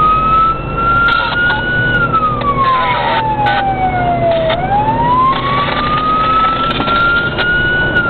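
Siren on a responding emergency vehicle sounding a slow wail, heard from inside the cab over engine and road noise. Its pitch peaks about two seconds in, falls for about two and a half seconds, then climbs back to its peak near the end. Several short bursts of hiss come in between.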